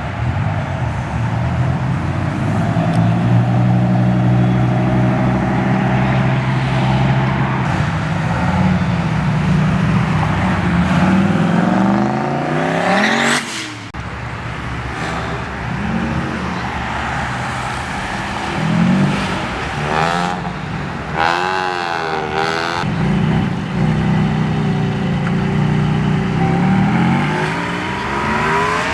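Car engines and exhausts as cars pull out one after another. About halfway through, one revs up hard in a rising sweep that cuts off suddenly. A few seconds later there is a quick series of rev blips rising and falling in pitch, then more engines accelerating.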